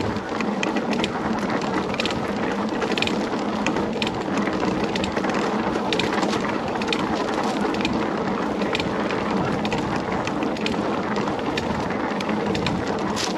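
Mountain bike rolling along a dirt and gravel trail: steady tyre and wind noise, with frequent small clicks and rattles from the bike over the bumps.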